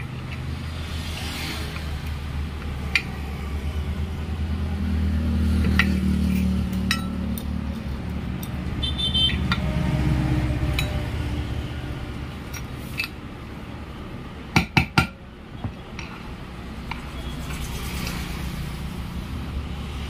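Scattered metal clinks and taps as a small bearing puller is handled and turned on a ceiling fan's aluminium end shield, over a steady low hum. A quick cluster of sharp knocks about fifteen seconds in is the loudest.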